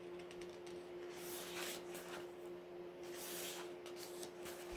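Paper rustling as the pages of an album photobook are handled and turned: two soft swishes, about a second in and again past the middle, over a faint steady hum.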